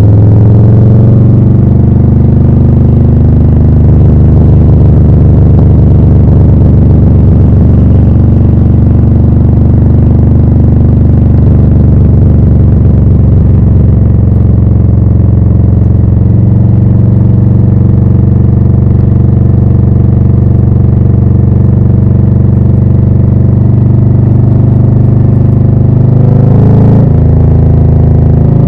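Harley-Davidson Low Rider S V-twin through Rinehart slip-on exhausts, running at a steady engine speed while riding. Near the end the sound dips briefly and then climbs in pitch again, as at a gear change.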